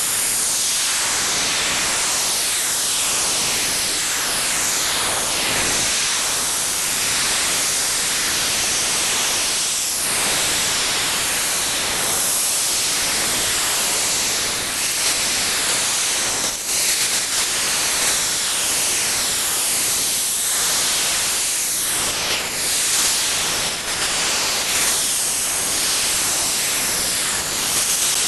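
Unknown noise or data signal received on a shortwave SDR receiver: a loud, steady hiss with faint falling swoops that repeat every second or two.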